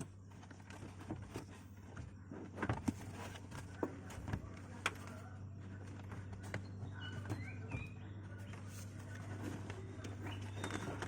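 Scattered light knocks and clicks from handling car floor mats and interior fittings, over a steady low hum.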